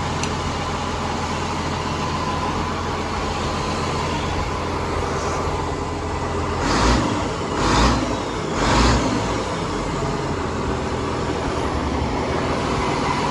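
International 3788 tractor's turbocharged diesel engine running steadily on its freshly fitted turbo, with three short louder bursts about a second apart in the middle.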